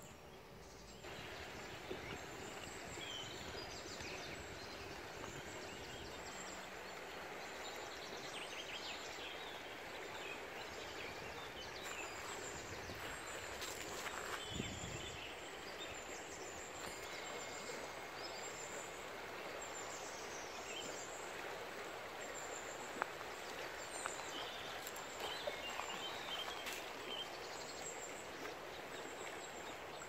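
Steady rush of a river's running water, with small birds chirping now and then.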